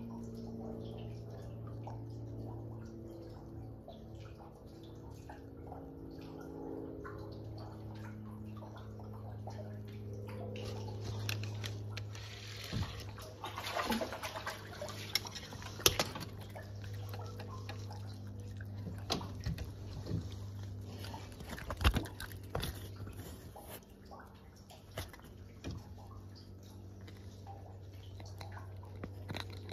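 Rainwater dripping and sloshing around a small fishing boat, over a steady low hum. About halfway through comes a splashy flurry of clicks and knocks, and a few sharp knocks follow a few seconds later.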